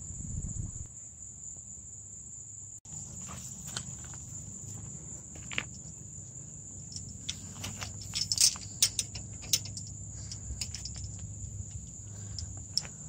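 Steady, high-pitched drone of insects, with scattered sharp clicks and knocks as a chain-link gate and its latch are handled.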